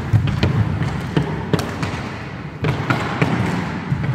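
Roller hockey play on a wooden sports-hall floor: a steady low rumble of skate wheels rolling, with a handful of sharp, irregular clacks of hockey sticks hitting the ball and the floor.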